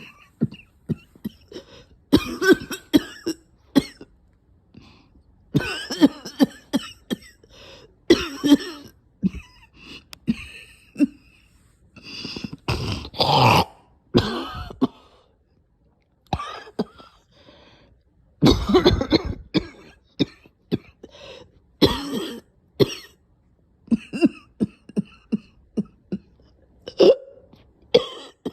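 A person's nasty coughing: repeated fits of several hard coughs each, broken by short pauses, with a longer, louder fit about halfway through.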